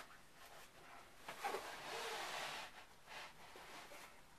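Faint rustling and rubbing from a handheld camera being moved around a small cabin, with a short hissy rush a little past the middle.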